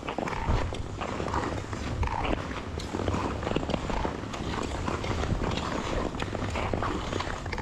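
Ice skate blades scraping and gliding over rough outdoor canal ice in repeated strides, over a steady low rumble of wind on the microphone.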